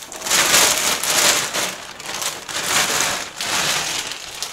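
Thin plastic shopping bag rustling and crinkling as it is handled and pulled away, in three or four rustling surges.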